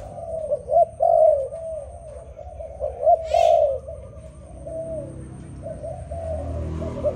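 Spotted dove cooing in repeated phrases of short, arching low coos, loudest about one and three seconds in. A brief higher chirp comes about three seconds in.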